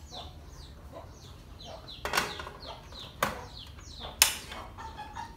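Aluminium pot handled and set down on a portable gas stove: three sharp metallic knocks, about two, three and four seconds in, the last the loudest. Small birds chirp quickly and steadily in the background.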